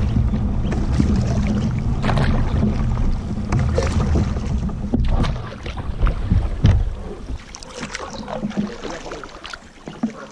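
Kayak paddle dipping and splashing in shallow water, with drips and small splashes at irregular moments, over a low rumble that fades out about seven seconds in.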